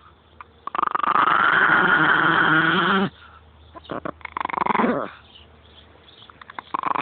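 Pet dog making drawn-out, growl-like grumbling vocalizations: one long wavering grumble, then a shorter one that falls in pitch, and another starting near the end.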